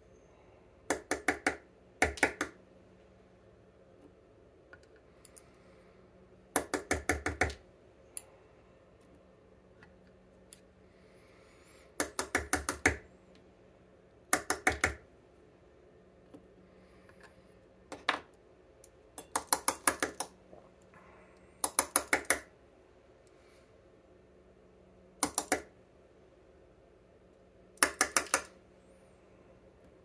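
Small metal clicks and taps as a TESA T80 dimple lock cylinder is taken apart with tweezers to remove its pins. They come in about ten short bursts of several quick clicks each, every few seconds.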